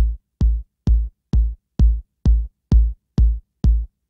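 Background electronic music: a drum-machine kick drum beating steadily, a little over two hits a second, each hit a deep thump with a sharp click on top.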